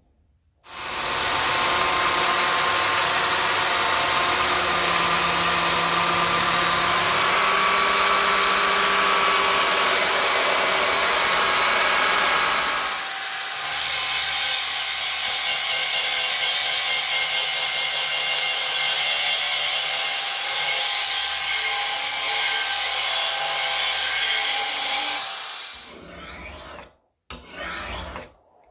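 Belt sander running steadily while a steel knife blade is ground on it. After about 13 seconds it gives way to an electric drill spinning a mounted abrasive stone against the blade. Near the end come a few separate strokes of a hand file rasping across the steel.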